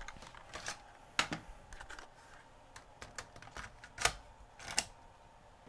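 Scattered light plastic clicks and taps, with three sharper knocks about a second in, about four seconds in and near the end, as an 8mm tape cassette and its case are handled.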